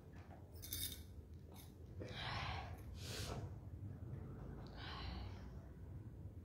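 A woman's soft breaths close to a phone microphone: several short puffs of breath spread over a few seconds, over a low steady background rumble.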